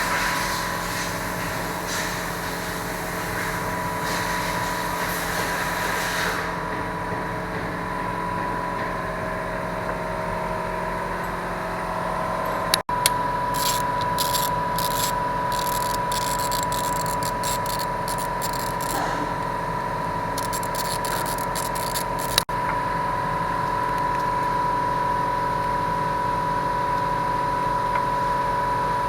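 A steady machine hum with a high whine throughout. From about 13 to 22 seconds in come quick clicks and scraping of hand tools as the engine's ignition coils are worked loose.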